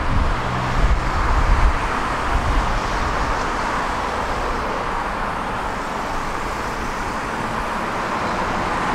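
Steady street traffic noise from a road. A low vehicle engine rumble in the first two seconds or so fades away, leaving an even hiss of passing traffic.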